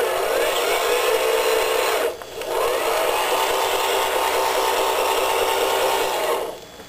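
Electric drive motor and gearing of a radio-controlled MAN TGA 6x6 scale truck whining steadily as it drives through mud, dropping away briefly about two seconds in and again near the end.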